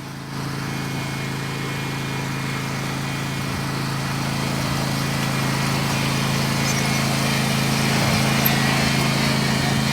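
Riding lawn mower's small engine running at a steady speed during a race lap, growing louder over several seconds as the mower comes closer, then easing slightly near the end.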